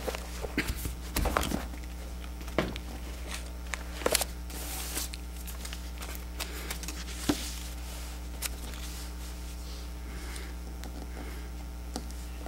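Steady low hum in a quiet room, with scattered faint clicks and rustles every second or two.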